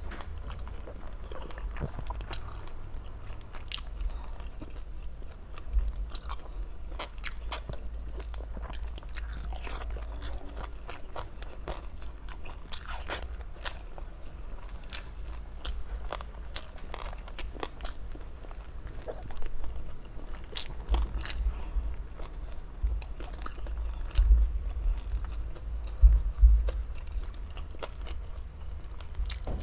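A person biting and chewing food close to the microphone: many short crunching clicks, with a few louder low thumps near the end.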